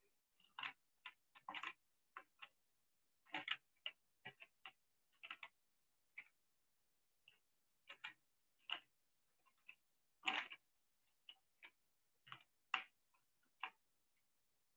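Computer keyboard typing: irregular, sharp key clicks, some single and some in quick runs, with quiet gaps between.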